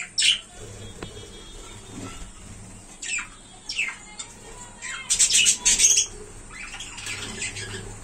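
Budgerigars squawking and chattering in short, sharp calls, with the loudest burst of squawks about five seconds in.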